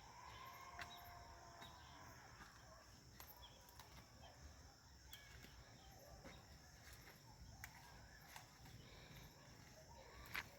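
Near silence: faint outdoor ambience with a steady high-pitched insect drone, like crickets, and scattered faint clicks.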